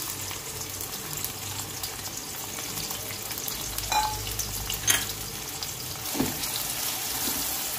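Sliced red onions sizzling steadily in hot oil in an aluminium pot, with a couple of light clicks about four and five seconds in as a metal spoon goes in to stir them.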